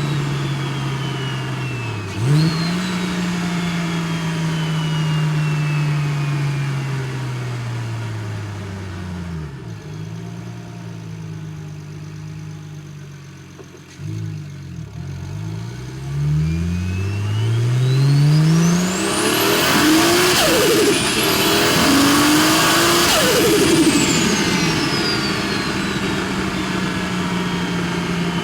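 BMW N54 3.0 L inline-six with a big single turbo, heard from the driver's seat. Engine pitch sinks as the car slows, then climbs in several steps as the car accelerates through the gears. A loud turbo whistle rises very high about two-thirds of the way in and falls away, and the engine settles to steady running near the end.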